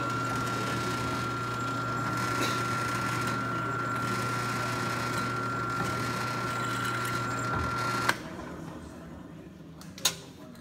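Drill press motor running steadily with a hum and a high whine while the bit is fed down into a metal bar held in a vise. The machine sound stops abruptly about eight seconds in, followed by a couple of sharp metallic clicks near the end.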